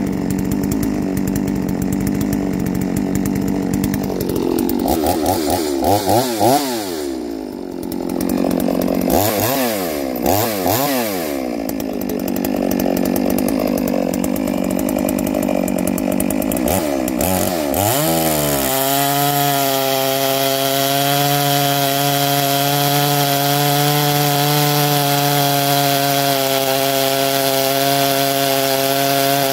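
Clone two-stroke chainsaw with a 36-inch bar idling, then revved up and down a few times to warm it up. From about two-thirds of the way through it is held at full throttle at a steady pitch as the full-chisel chain cuts into a green hardwood log.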